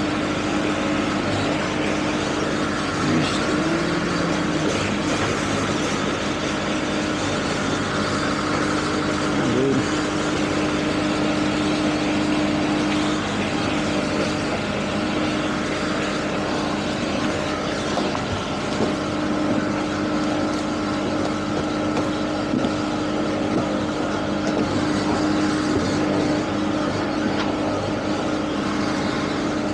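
Motorboat with outboard engines running under way: a steady engine drone over a continuous rush of water and wind.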